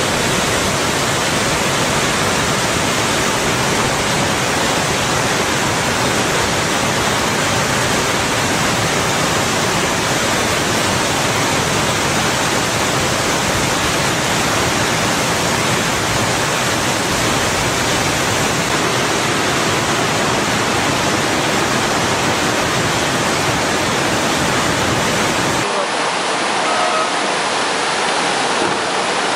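Loud, steady rushing of floodwater, an even continuous roar with no breaks. About 26 seconds in it changes abruptly, becoming thinner with less low end.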